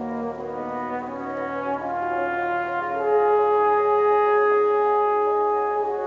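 Background music: long held notes layered into chords that swell louder about three seconds in.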